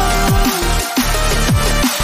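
Electronic background music in a drum-and-bass style, with a steady beat and deep bass notes that slide downward again and again.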